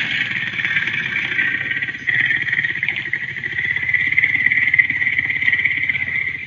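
Creature sound effect: one long, rasping screech with a steady high shrill band over a fast rattling buzz, cutting off near the end.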